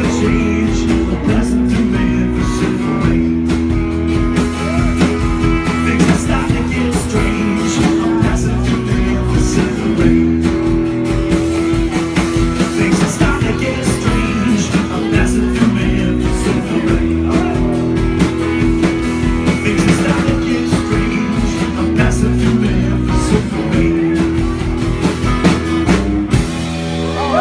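Live rock band playing: strummed acoustic guitar with electric guitar and drums, steady and full throughout.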